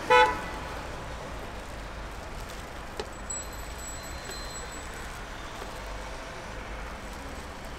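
Steady low background noise of the kind heard at a roadside, opened by a short pitched beep-like tone about a quarter of a second long. A single click follows about three seconds in.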